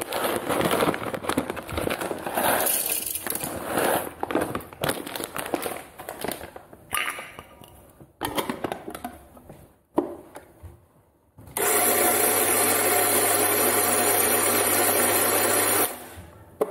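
Kitchen handling noises, irregular clatter and rustling, then about eleven seconds in a small electric kitchen appliance with a motor hum runs steadily for about four seconds and cuts off.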